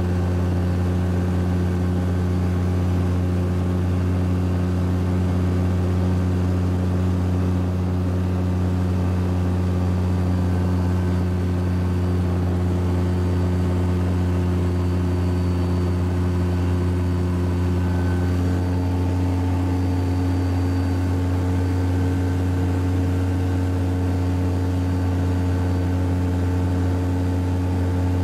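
Light aircraft's piston engine and propeller droning steadily in cruise, heard from inside the cockpit. Its note changes slightly about two-thirds of the way through.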